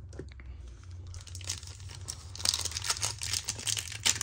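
Foil wrapper of a trading-card pack crinkling and tearing as it is opened, the crackling getting denser and louder about two and a half seconds in.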